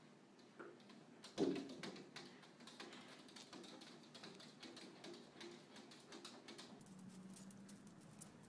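Faint, light tapping and clicking of a cat's and a dog's paws and claws against a glass door pane, with one louder short sound about a second and a half in.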